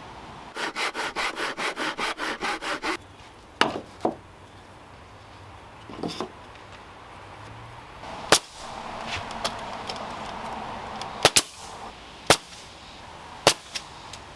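Hand saw cutting through a wooden 2x4 strip with about a dozen quick, even strokes, followed by scattered knocks of wood on wood and some lighter rasping.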